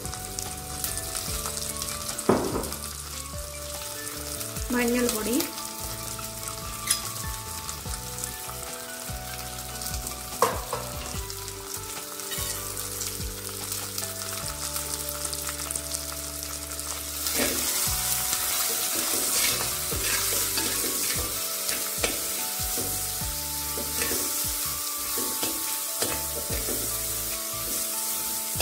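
Shallots, ginger, garlic, green chillies and curry leaves sizzling in hot coconut oil in a clay pot. About two-thirds of the way in, a spoon starts stirring them and the sizzling gets louder.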